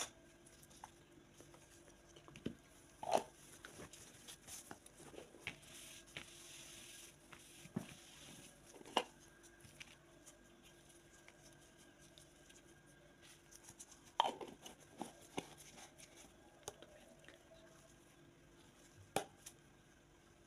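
Gloved hands handling a plastic jar of face-mask paste: scattered small clicks and taps of plastic with light rustling, a few sharper taps standing out.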